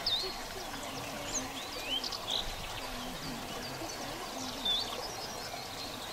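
Small birds singing in the countryside: short chirps and whistles scattered throughout.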